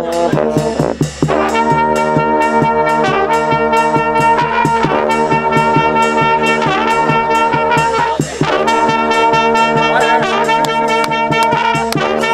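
Serbian village brass band (trubački orkestar) playing a tune: trumpets and tenor horns over a bass drum keeping a steady beat.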